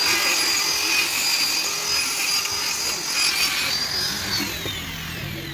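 Handheld straight die grinder running at full speed with a steady high whine, then winding down from about four seconds in as it is switched off.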